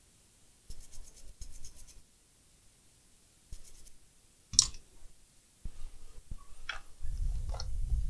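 Small scratching and rubbing strokes from handwork at an electronics repair bench, with a sharp click about four and a half seconds in and a low rumble of handling near the end.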